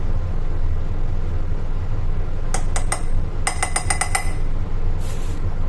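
A spoon clinking against a bowl: a few taps about two and a half seconds in, then a quick run of about seven ringing taps, over a steady low hum.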